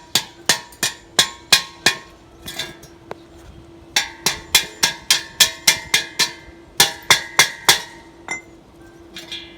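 Hammer striking metal in three quick runs of blows, about three a second, each blow ringing briefly. A steady hum runs underneath.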